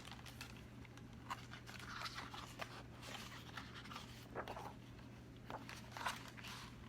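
Faint rustling and light scattered clicks of a picture book's paper pages being handled and turned.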